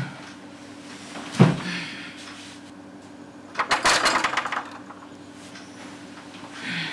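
Short knocks and rattling creaks of a bed as a person shifts, lies back and moves on it: one knock about a second and a half in, a longer rattling cluster around four seconds, and a smaller one near the end, over a steady low hum.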